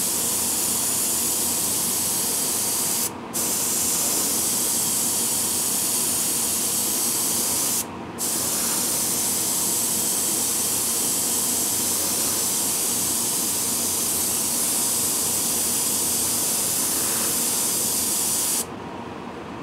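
Airbrush hissing steadily as it sprays paint, breaking off briefly twice (about three and eight seconds in) and stopping about a second before the end.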